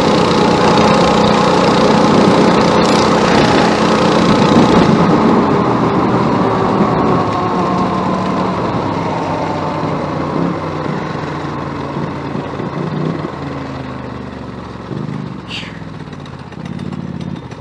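Worn-out 212cc single-cylinder go-kart engine running flat out, its note then slowly falling in pitch and fading as the kart slows down.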